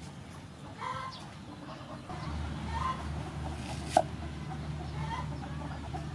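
Chickens clucking, short calls every couple of seconds. About four seconds in comes one sharp knock as a cleaver chops through an onion onto a wooden board, and from about two seconds in there is a low steady hum.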